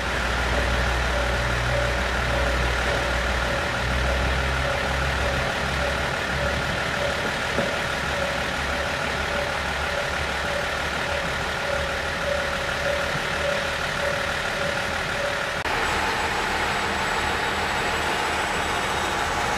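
KiHa 48 diesel railcar's engine running as the train pulls out along the platform. Underneath is a steady tone pulsing about twice a second. About three-quarters of the way through, the sound changes abruptly.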